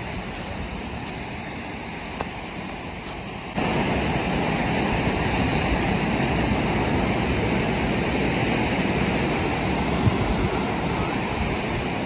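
Ocean surf breaking and washing up a sandy beach, a steady rushing wash that suddenly gets louder about three and a half seconds in.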